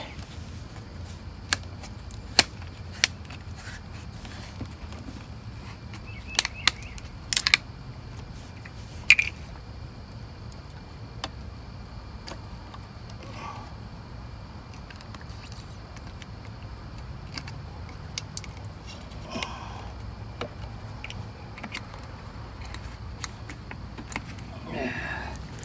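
Scattered sharp plastic clicks and taps from handling the oil-fill cap and dipstick on a new lawnmower's engine, a cluster of them in the first ten seconds and a few fainter ones later, over a steady low hum.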